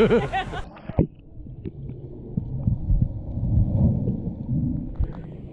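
A brief laugh, then the sound of a camera plunged underwater in a swimming pool: all the higher sounds cut off at once, leaving a muffled, low rumbling slosh of water, with a sharp knock about a second in.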